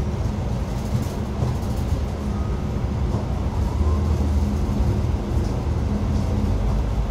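Steady running noise inside a moving Xiamen King Long XML6125JHEVG5CN1 hybrid city bus, mostly a low rumble from the drivetrain and road.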